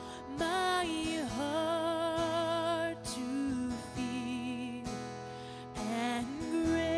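Background music: a slow song, with long held melody notes that waver steadily and glide between pitches.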